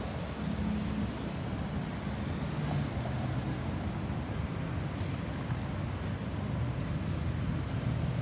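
Steady road-traffic noise: a low rumble of vehicle engines and tyres with no siren sounding.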